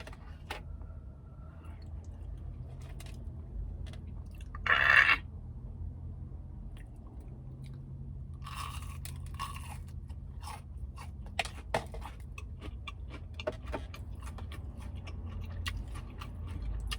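Biting and chewing of crunchy fried chicken tenders: one loud crunching bite about five seconds in, then steady chewing with many small crisp crunches.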